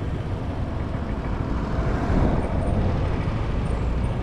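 Riding noise on a moving scooter: steady wind and road rumble with the scooter's small engine running.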